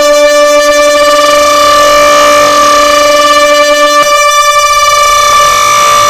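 DJ sound-system speakers blasting a long, steady horn-like tone made of several stacked pitches; the lowest pitch drops out about four seconds in.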